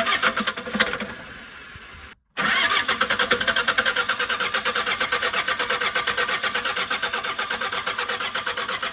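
Diesel engine of a Shengong 20 running with a fast, even knocking beat. There is a louder burst of engine sound at the start, then a brief break just after two seconds before the steady running resumes.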